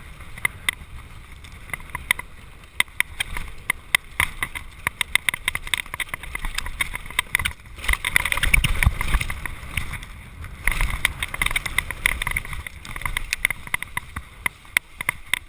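Mountain bike ridden fast down a rough dirt trail: a dense clatter and rattle of the bike over bumps, over a steady rumble of tyres and wind on the microphone, loudest about eight to ten seconds in.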